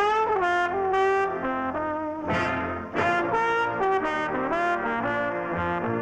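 Jazzy brass music on a cartoon soundtrack: trumpets and trombones playing a tune of held notes, some sliding in pitch.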